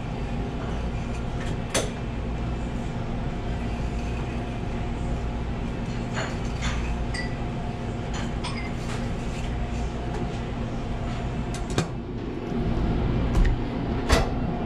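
Steady hum of kitchen machinery with a few sharp knocks and taps of the knife and fish being handled on the cutting board, the loudest near the end as the fish is turned over.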